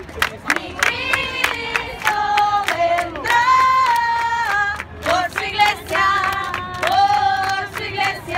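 Crowd of marchers singing together in long, held phrases, with a quick, steady beat of hand-claps under the voices.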